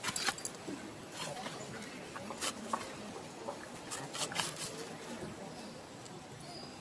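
A scattering of short, sharp clicks and ticks over a faint steady outdoor hiss, a few near the start and a small cluster past the middle.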